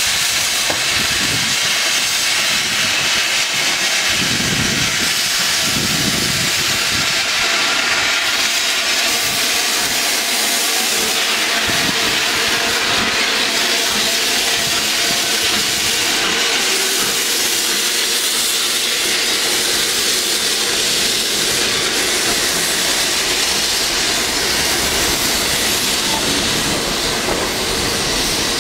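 Metropolitan Railway E Class No. 1 steam tank locomotive hissing steam steadily and loudly as it moves off, with its coaches rolling past near the end.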